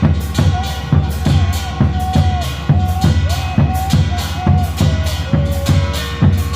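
Instrumental passage of a Bengali devotional song: a steady, quick drum beat under a melody line that slides between notes.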